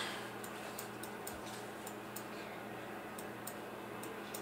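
Faint, light key clicks from typing on a keyboard, coming unevenly at about three a second over a low steady hum.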